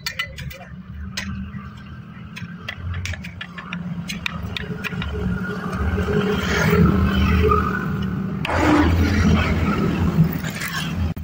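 Motor vehicles passing on the road, a low engine drone that swells twice, with a few light clicks and taps in the first few seconds.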